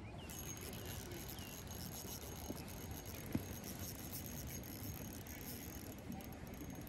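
Steady low rumble and hiss of outdoor background noise, with a single sharp click a little over three seconds in.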